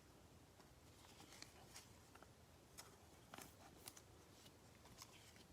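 Near silence with a few faint, short clicks and rustles of trading cards being handled and sorted.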